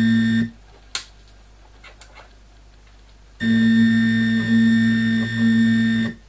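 Stepper motor driving a home-built CNC mill's Y-axis ballscrew on its first test run, giving a steady pitched hum with high overtones. It stops about half a second in, a single click follows, and it runs again for nearly three seconds from a little past the middle.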